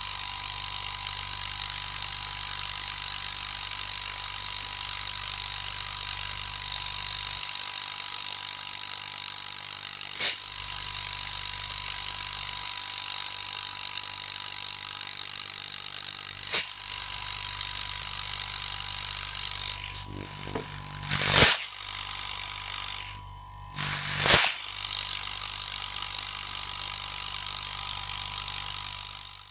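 Refrigerator compressor motor running: a steady low hum with hiss, broken by two sharp clicks and, towards the end, two louder knocks.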